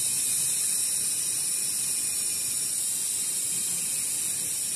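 Steady high-pitched hiss of an insect chorus, holding level without pause.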